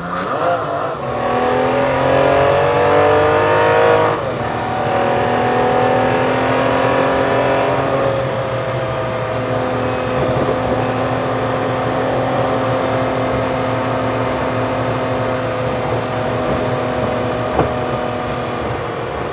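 Truck engine heard from the cab, sped up four times, so it sounds high and race-car-like. Its pitch climbs and drops back twice, about four and eight seconds in, as it works up through the gears, then holds nearly steady while cruising.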